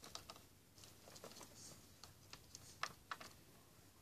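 Near silence: room tone with a few faint, scattered clicks and taps, the clearest two a little before the end.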